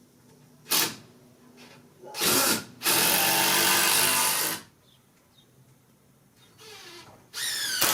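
Power drill running in bursts: a brief blip about a second in, then a steady run of about two seconds, and near the end a short rising whine as the motor spins up.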